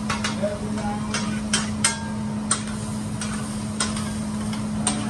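Metal spatulas clicking and scraping on a steel hibachi griddle: a series of sharp, irregular metallic clicks over a steady low hum and hiss.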